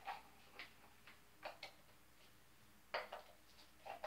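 Small plastic Play-Doh tubs and lids being handled and set down on a countertop: a few faint, scattered light clicks and knocks.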